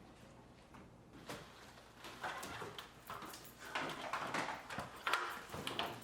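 Irregular knocking, cracking and scraping of hand tools prying the old camper roof structure away from its fiberglass shell. A single knock comes about a second in, and the knocking grows busier and louder from about two seconds on.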